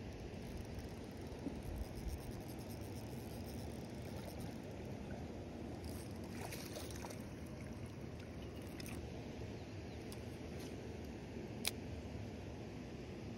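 Steady low background rumble, with a short stretch of rustling, scratchy handling noise about halfway through and a single sharp click near the end.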